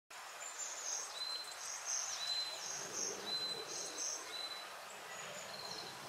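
A shallow stream trickling and babbling over rocks, with a small songbird singing a high, repeated phrase of short whistled notes over it, fading near the end.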